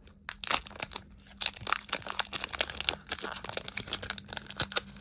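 Foil wrapper of a Pokémon booster pack crinkling and tearing as it is pulled open by hand, with many small irregular crackles.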